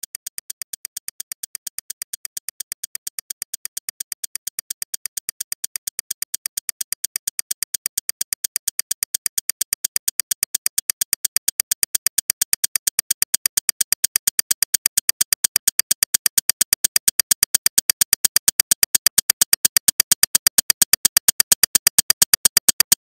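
Electronic soundtrack of rapid, evenly spaced synthetic clicks, about six a second, bright and high-pitched, growing steadily louder and fuller.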